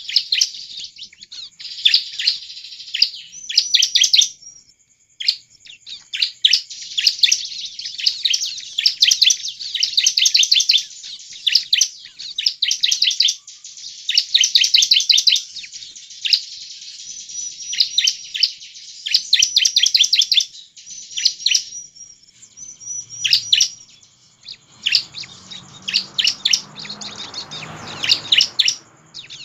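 Bar-winged prinia (ciblek) singing: repeated bursts of rapid, sharp chirps with short pauses between them. A soft rushing noise rises underneath near the end.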